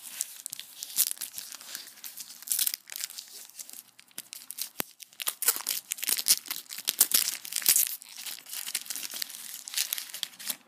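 Foil trading-card booster pack being torn open and its wrapper crinkled: a dense run of crackles and rips, with a short lull about four seconds in.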